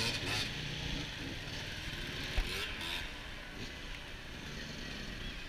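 Distant enduro motorcycle engines revving unevenly, faint under a steady outdoor background noise.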